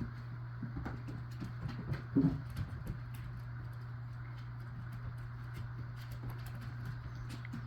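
Two Australian Shepherd puppies tussling over a rope toy: scattered light clicks and scuffles, with one louder short sound about two seconds in. A steady low hum runs underneath.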